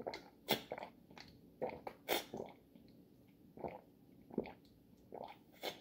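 A person drinking from a bottle in long swigs: a string of about ten short gulping and swallowing sounds at irregular gaps.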